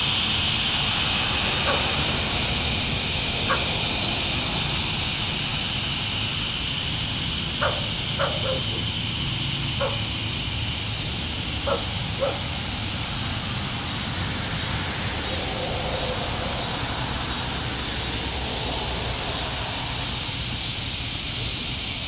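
Steady high-pitched buzzing chorus of evening insects, its main pitch shifting higher about halfway through. Under it runs a low steady rumble of distant traffic, and a few short sharp sounds come in the first half.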